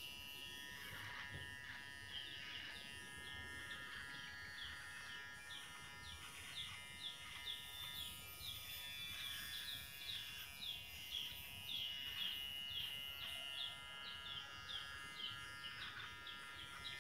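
GSE 009 hair clipper running steadily, its bare blade trimming beard stubble close on the chin and jaw. Short high chirps repeat a few times a second over the clipper's steady hum.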